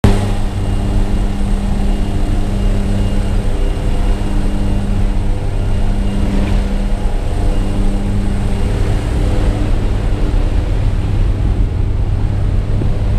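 Propeller engine drone inside a jump plane's cabin, with the door open in flight: a loud, steady hum of several low tones over a dense low rumble of wind rushing past the doorway and buffeting the microphone.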